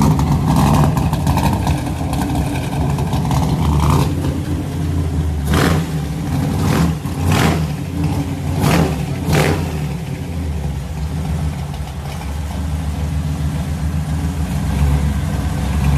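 Chevrolet C10 pickup's engine running at a loud, steady idle, blipped with about five quick revs about halfway through.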